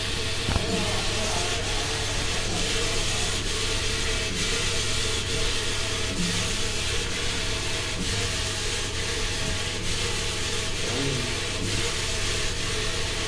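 Saree polishing and rolling machine running, with a steady mechanical noise and a low hum, while the saree is drawn through its rollers. A faint tick repeats about once a second.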